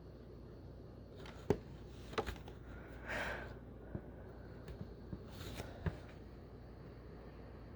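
A few faint sharp clicks and knocks and a short rustle about three seconds in, over a low steady hum.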